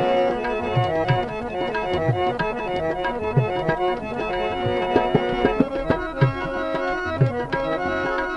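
Instrumental break in a folk song: tabla plays a steady rhythm under long held melody notes from a reedy instrument.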